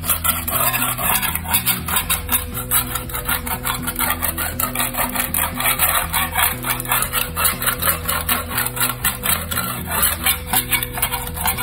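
Hand scraper rasping across a concrete floor, scraping off flaky old flooring glue in quick repeated strokes, about four a second, with background music underneath.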